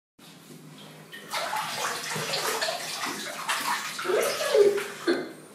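Water sound effect: splashing and drops plopping into water, growing louder about a second in, with a few hollow plops near the end.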